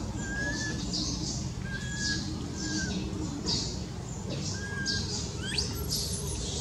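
Repeated short, high-pitched animal chirps about twice a second, with short level whistles between them and one quickly rising squeal near the end.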